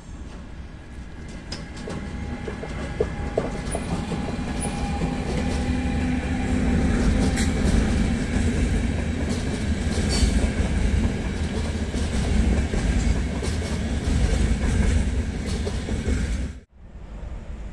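A long passenger train hauled by an electric locomotive passes close by. Its wheels rumble on the rails, growing louder over the first few seconds, with a steady hum and the clickety-clack of coach wheels over rail joints. The sound breaks off abruptly near the end.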